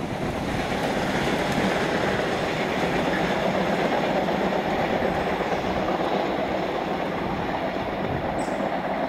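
Freight train of open wagons running away along the track after passing, a steady rolling rumble of wheels on rail that eases slightly near the end.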